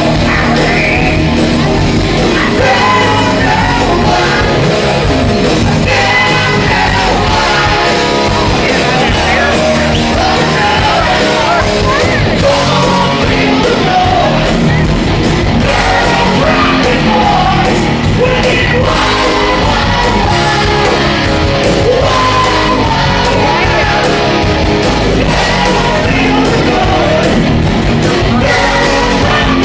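Live rock band playing loud, with singing over electric guitars and drums.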